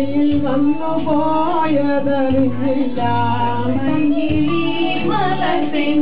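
Women singing a Malayalam film song into microphones, with steady instrumental accompaniment that has a regular beat.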